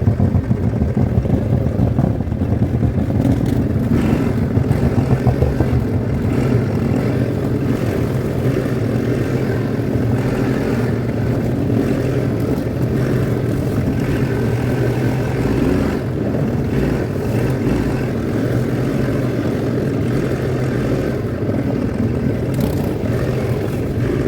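Quad bike (ATV) engine running steadily while riding, a continuous low engine drone with a rougher, uneven stretch in the first few seconds.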